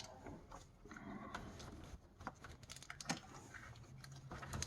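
Faint, irregular small plastic clicks and rustling as an electrical connector and wiring harness are handled while being worked down onto an engine temperature sensor.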